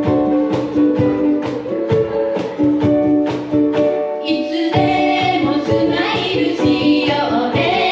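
Ukuleles strummed in a steady rhythm with voices singing a pop melody over them; a brighter, fuller vocal part comes in about four seconds in.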